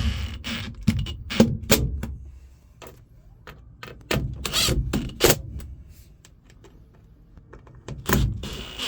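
Clicks and knocks of tools and screws on a metal floor plate, broken by a few short bursts from a power driver setting the last screws.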